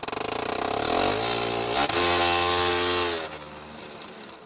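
Car engine revving high, with a fast pulsing at first and then a steady high rev held for about a second before it drops away about three seconds in.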